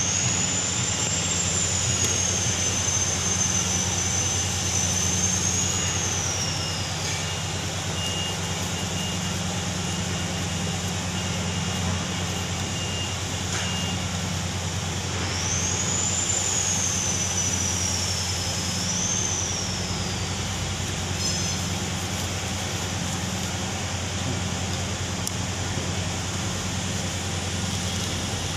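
Steady machinery drone with a low hum. A high whistling tone glides up, wavers and falls away, heard twice for several seconds each.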